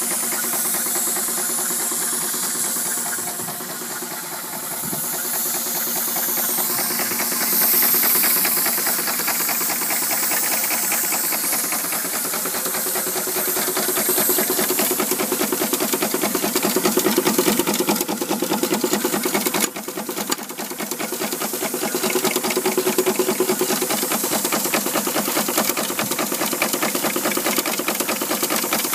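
4-inch scale Burrell traction engine under steam, with a steady hiss of steam and a fast, even mechanical beat running through it. The sound dips briefly about twenty seconds in, then picks up again.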